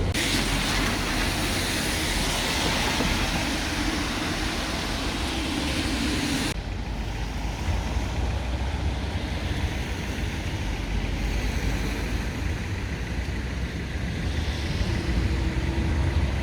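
City street traffic: a steady rumble and hiss of passing road vehicles, changing abruptly about six and a half seconds in.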